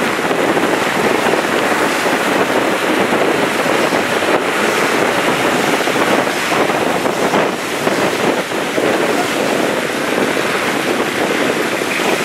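Steady rushing of stormwater flowing along a flooded road, with cars driving through the water.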